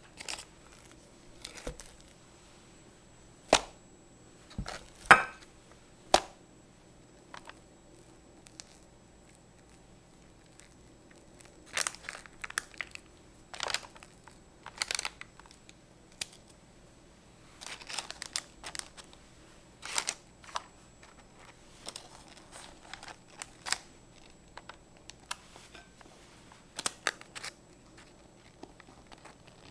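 Parchment paper crinkling and rustling in short irregular bursts, with soft scrapes and taps from a spatula spreading cream and cookies being set down in a glass baking dish. The sharpest crinkles come a few seconds in.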